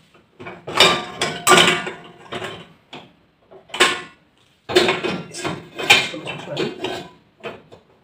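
Metal pots and pans clanking against the wire lower rack of a dishwasher as they are loaded: a string of knocks and rattles, in two clusters about a second in and again around five to six seconds in.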